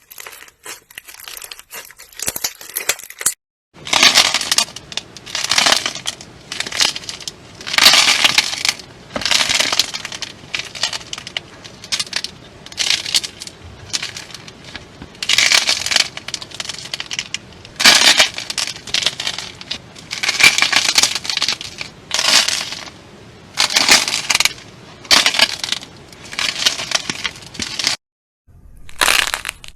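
Slime being squeezed and pressed by hand, crackling and crunching in repeated bursts about once a second, with two abrupt breaks to silence.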